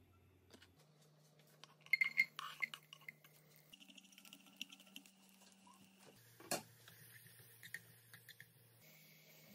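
Frying-pan cooking sounds: sharp clinks and taps against the pan, then a wooden spatula scraping and stirring sliced garlic and chili in oil, with one sharp knock past the middle.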